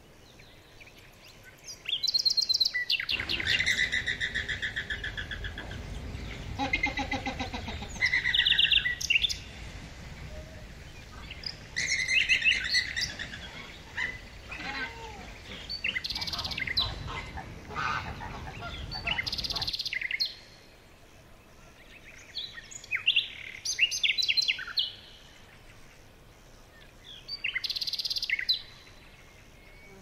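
Birds chirping and calling in repeated bursts of short notes, several voices overlapping. A low rushing noise runs underneath until about two-thirds of the way through.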